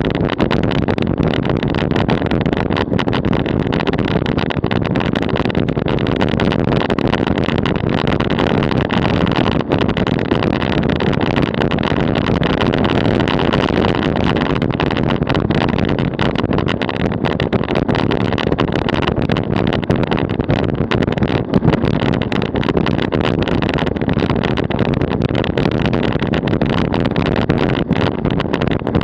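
DF velomobile rolling at about 40 km/h on asphalt: a steady rumble of tyres and road noise through the shell, with rushing air.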